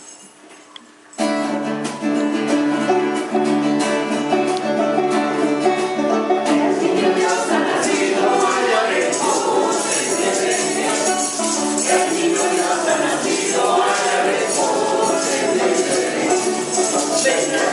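Choir performing a Spanish-language Christmas carol with guitar and tambourine. After a brief quiet, the instruments come in about a second in, and the music grows fuller with shaking tambourine and singing from about the middle on.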